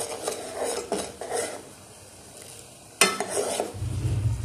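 Metal spoon stirring and scraping in a metal pot of boiling spiced tea water, with a sharp clank of spoon against the pot about three seconds in. A low hum comes in near the end.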